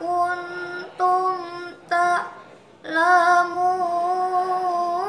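A girl's solo voice reciting the Quran in melodic tilawah style, drawing out long held notes. There are short breaks between phrases and a breath about two and a half seconds in, then one long sustained note.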